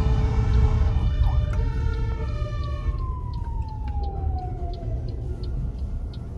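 Fire engine's siren sounding, then winding down: its pitch falls steadily for about three seconds as it is shut off on arrival. Under it runs the low rumble of the truck's engine.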